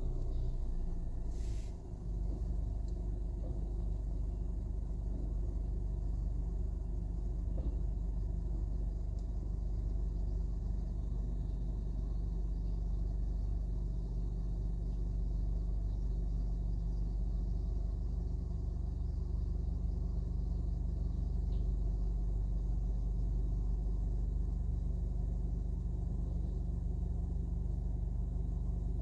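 Rear-loader garbage truck's engine running steadily at a standstill, a continuous low hum.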